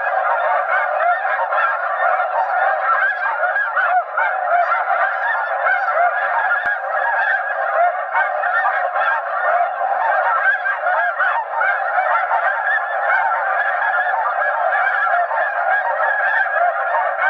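Dense, unbroken chorus of snow goose calls at a steady, loud level, from electronic goose callers turned up full and the large snow goose flock circling overhead.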